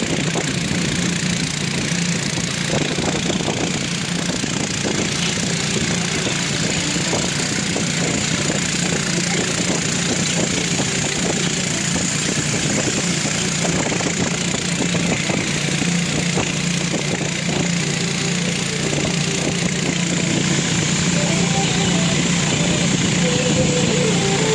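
Motor of a wooden river boat running steadily under way, with water rushing past the hull.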